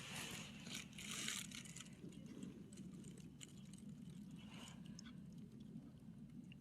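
An animal eating, with faint chewing and crunching and small irregular clicks.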